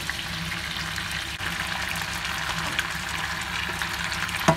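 Wok sizzling steadily as freshly washed kangkong (water spinach) goes into hot oil with leftover pork adobo. A single sharp knock comes near the end.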